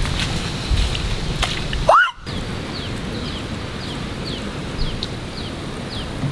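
Wind rumbling on the microphone for about the first two seconds, then a brief rising vocal call. After that a steady outdoor hiss, with a short, high falling chirp repeating about twice a second.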